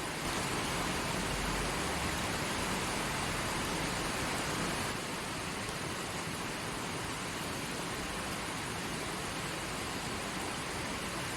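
Creek water flowing over rocks: a steady, dense rushing hiss that drops slightly in level about five seconds in.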